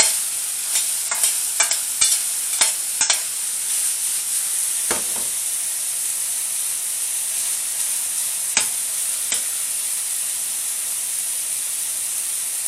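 Beef and chicken chunks sizzling steadily as they brown in hot fat in a pan. A utensil knocks against the pan several times in the first few seconds and a few times more later on.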